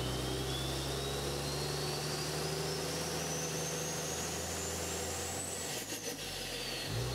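Intro sound effect: a high whine rising steadily in pitch for about five seconds, then falling, over a steady low hum. The hum drops out with a few clicks about six seconds in.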